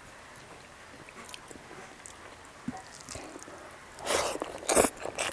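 Close-up mouth sounds of a person eating rice and curry by hand: quiet chewing with small wet clicks, then a louder wet burst about four seconds in as a handful of rice goes into the mouth.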